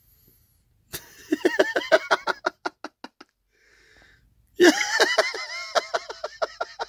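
A person laughing in two bouts, each a quick run of breathy 'ha' pulses that slow down and fade, the second starting a little past the middle.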